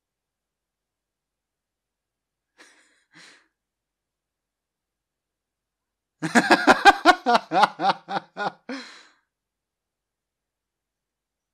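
A man laughing: a run of about ten quick bursts of laughter lasting about three seconds, starting about halfway through. Two faint breaths come a few seconds before it.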